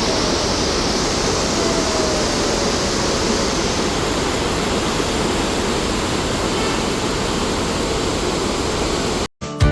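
Waterfall: a steady, dense rush of falling water, cutting off suddenly near the end.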